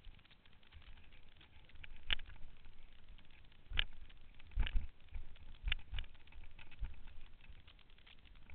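Mountain bike riding down rocky singletrack: a steady crackle of tyres over stones and gravel, with a run of sharp knocks from about two seconds in as the wheels and frame clatter down over rock steps.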